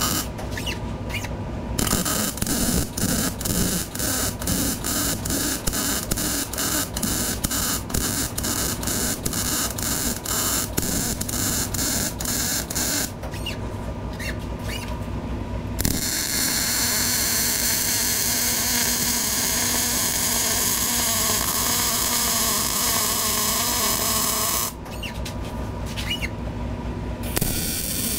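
MIG welder arc crackling and hissing as weld beads are laid on steel, in runs broken by short pauses. It stops briefly about a second in, again about halfway, and a few seconds before the end. The earlier bead is a rapid crackle, the later one a steadier hiss.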